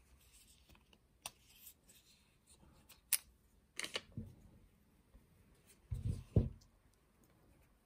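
Handling noise of a compact camera and its furry windscreen: several light clicks and ticks, then a few dull thumps about six seconds in, the loudest sounds.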